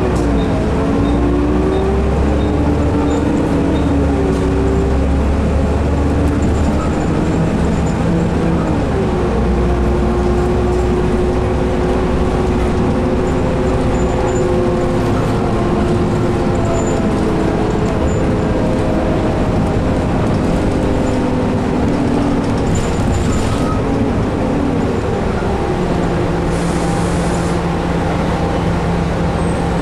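Volvo B9TL double-decker bus's diesel engine and drivetrain heard from inside the passenger cabin, a steady rumble with a pitch that rises and falls several times as the bus accelerates and changes speed. It settles into a steady hum for the last few seconds, with a brief hiss a few seconds before the end.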